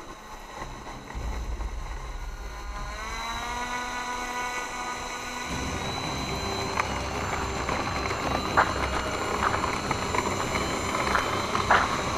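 Electric motor and propeller of an ArtTech 1700 mm Pilatus PC-6 Turbo Porter radio-control model, its whine rising in pitch about three seconds in as the throttle opens, then running steadily. A few sharp clicks come near the end.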